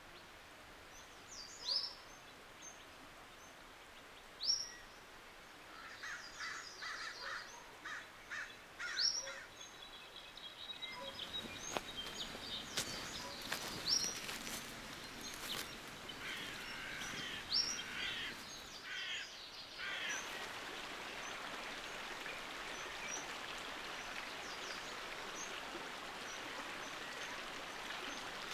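Birds calling outdoors: short sweeping high chirps every few seconds and bursts of rapid chirping, over a steady hiss of background noise that grows louder about ten seconds in.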